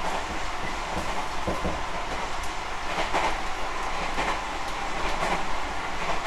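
Tobu 50050 series electric train running between stations, heard from inside motor car MoHa 52068: a steady running noise of wheels and motors, with a few clacks as the wheels pass rail joints.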